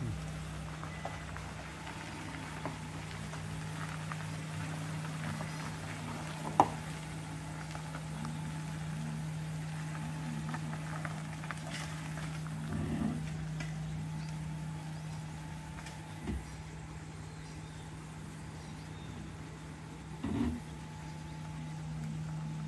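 Nissan Cedric wagon's engine running at a low steady idle as the car creeps out of a gravel driveway. There is a sharp click about a third of the way in and two short low thumps later on.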